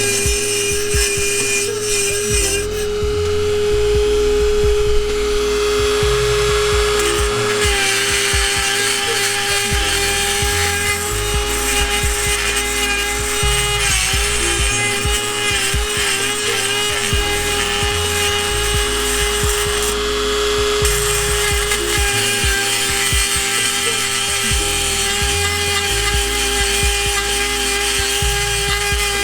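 Dremel 4000 rotary tool running with a steady high whine while grinding down the cracked end of the exhaust, with brief dips in pitch now and then. The grinding is meant to stop the two cracked ends tapping together, which causes a rattle at certain RPM.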